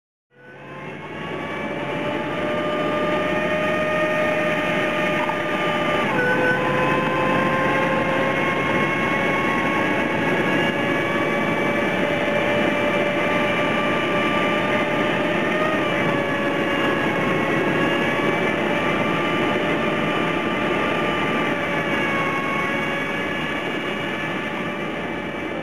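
A heavy vehicle's engine running steadily with a loud drone and a whining tone. The whine drops in pitch about six seconds in and shifts again partway through. The sound fades in at the start.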